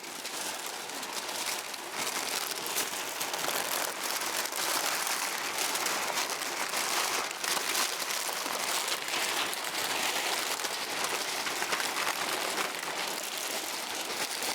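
Brown paper being crumpled and scrunched by hand, a dense, steady crackling that builds up over the first couple of seconds: the paper is being worked soft and flexible for shaping puppet bodies.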